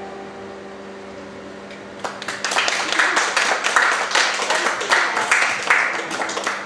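An audience applauding. It starts suddenly about two seconds in, after the last guitar note of a song fades away, and is still going at the end.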